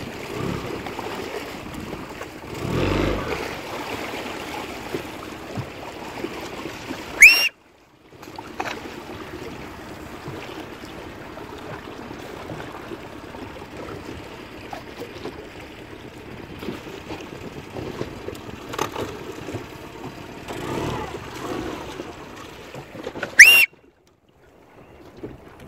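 Wind buffeting the microphone over choppy water slapping around a small boat, with a louder surge about three seconds in. Twice a short, very loud high squeal cuts in, each followed by a brief dropout to silence.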